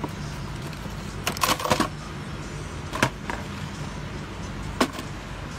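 Plastic clicks and rattles of a car's air filter box being opened and the panel air filter being lifted out: a quick cluster of clicks a little over a second in, then single clicks about 3 and 5 seconds in, over a steady low hum.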